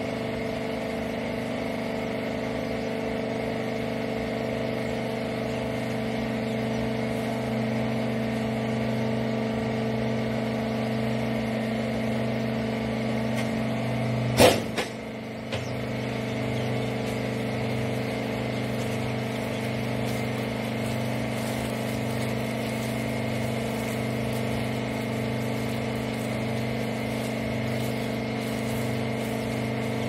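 Hydraulic rag baler's power unit, an electric motor driving a hydraulic pump, running with a steady hum. About halfway through comes a single sharp clunk, and the hum dips for about a second before carrying on.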